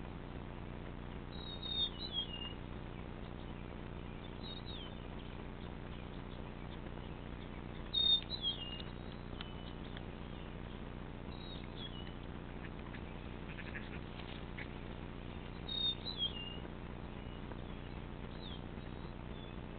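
A bird calling with short, high, downward-sliding chirps, three louder ones several seconds apart and fainter ones between, over a steady low hum.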